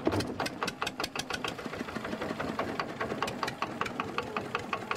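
Longtail boat engine running steadily, its exhaust beating evenly at about eight pulses a second.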